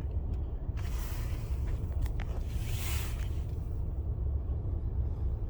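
Steady low rumble heard inside a car's cabin as it idles, with two hissing rushes, one about a second in and one around three seconds in.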